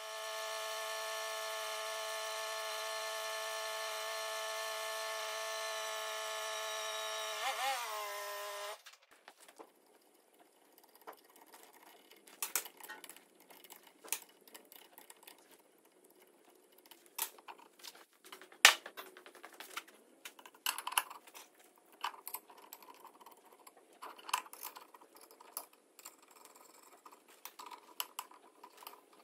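Portable line boring machine's drive motor running with a steady whine, wavering and dropping in pitch briefly before it stops about nine seconds in. After that come scattered sharp metal clinks from a ring spanner on steel bolts and plates, one clink much louder than the rest.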